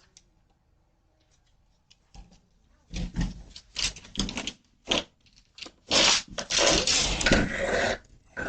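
A door banged on and rattled: a run of sharp knocks and bangs, then a long, loud rattling, scraping noise, heard through a doorbell camera's microphone.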